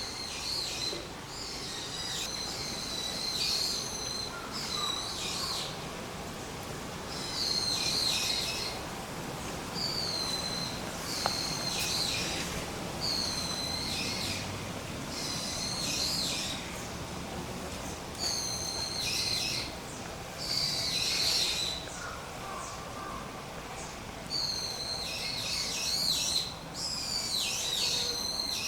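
Birds calling over and over, high-pitched calls coming every second or two in clusters, with short pauses between.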